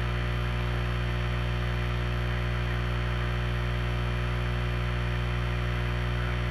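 Steady low electrical hum, a set of constant mains-frequency tones, with an even hiss over it and no change in level.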